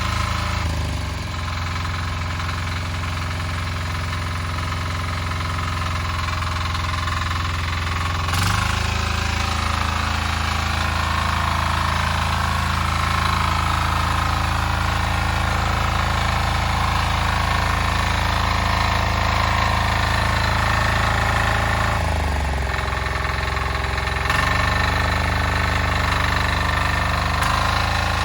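Single-cylinder diesel engine of a Weima walk-behind tractor running, slowing down and picking up speed again twice.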